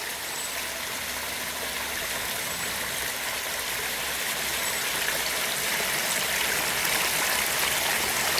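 Water running and splashing down a pondless waterfall and its rock stream, a steady rushing that grows slowly louder.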